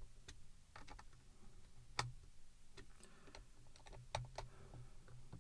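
Scattered small clicks and taps of plastic headphone ear-cup parts being handled and fitted, with a sharper click about two seconds in and another about four seconds in.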